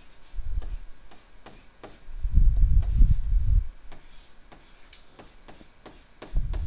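Stylus tapping and scraping on a digital writing surface as letters are handwritten: a run of irregular light clicks, with louder dull thumps about half a second in and again from about two to three and a half seconds.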